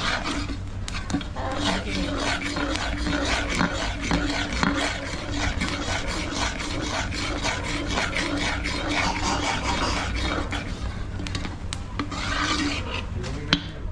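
Quick, uneven scraping strokes of a utensil against a cooking vessel, with a steady low rumble underneath and a sharp click near the end.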